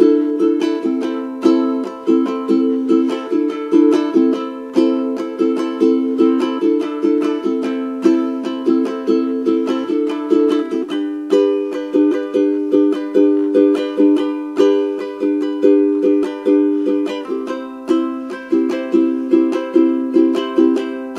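Ukulele strummed in a steady rhythm with no singing, moving between Dsus2 and C chord shapes, with the chord changing audibly a few times.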